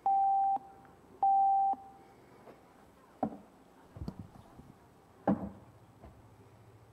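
Two identical electronic beeps, each about half a second long at the same pitch, from a small handheld device, followed by several knocks and bumps as a microphone is handled and adjusted on its stand.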